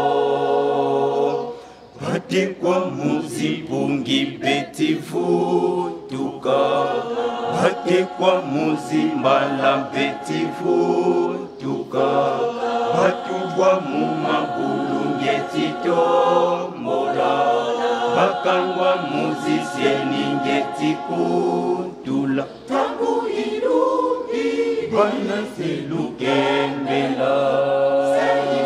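Choir singing in parts. A long held chord ends about a second and a half in, then the singing starts again with the next phrase.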